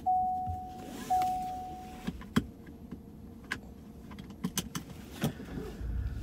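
Seatbelt reminder chime in a pickup truck, two pings on one steady pitch about a second apart, stopping as the belt is buckled with a sharp click. A few lighter clicks and rattles of the belt follow, and a low rumble starts near the end.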